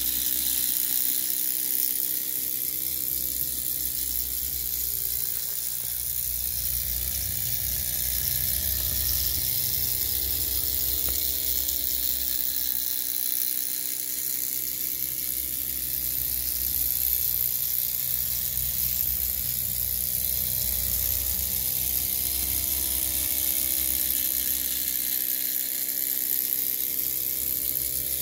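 Miniature model traction engine running as it drives along: a steady high whir with a constant hiss, its pitch drifting slightly up and down.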